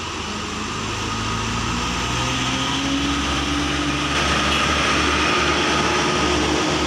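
Diesel engines of light cargo trucks running past close by, growing louder as one truck passes and another comes on, with the engine note rising partway through.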